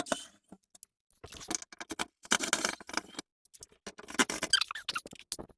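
Irregular clicks, taps and light rattles of small door hardware and tools being handled, in several short clusters.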